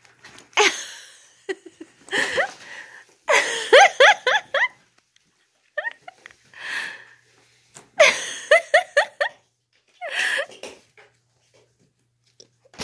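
A person laughing in a series of short, breathy bursts of giggles, separated by brief pauses.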